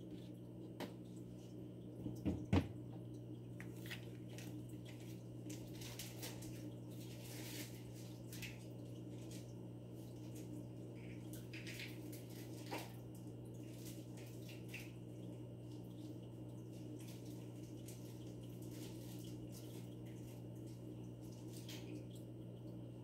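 Steady low hum of running aquarium equipment with faint water trickling and dripping, and two sharp knocks about two seconds in.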